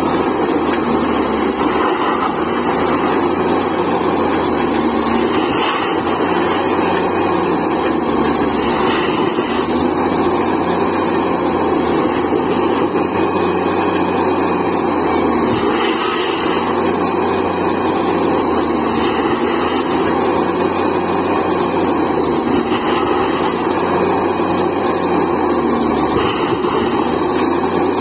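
Truck-mounted borewell drilling rig running steadily, its engine driving the drill rod as it turns down into the ground.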